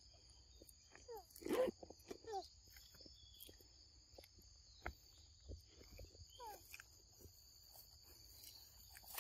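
Steady high-pitched drone of forest insects, with a few short falling animal calls, the loudest about a second and a half in and another group around six and a half seconds, and scattered soft clicks.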